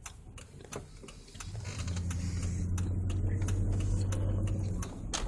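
Car engine and road noise heard inside the cabin. A steady low hum builds about a second and a half in and eases off near the end, with scattered light clicks throughout.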